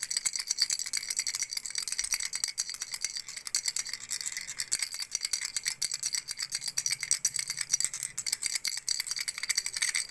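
A baby's frog rattle shaken continuously: a dense, unbroken run of rapid clicks with a high ringing.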